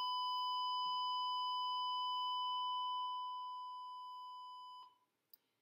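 A steady electronic beep, one unwavering tone, held for nearly five seconds; it softens a little in its last second or two and then cuts off.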